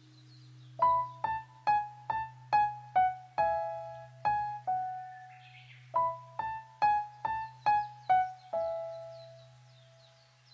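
Background music: a piano-like keyboard playing slow single notes, each struck and fading, in two short phrases with a pause between them.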